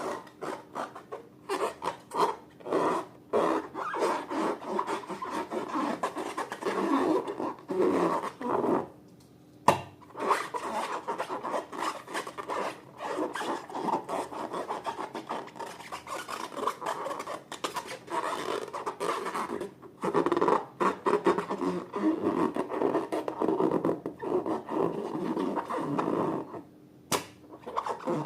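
Slime being mixed and worked: a dense run of short, rubbing, crackling strokes. They stop briefly about a third of the way in, start again with a single sharp knock, and pause once more near the end.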